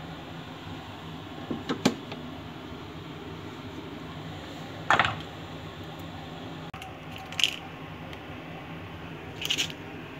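A few sharp clicks and knocks from things being handled at a kitchen appliance, the loudest about halfway through, over a steady low hum.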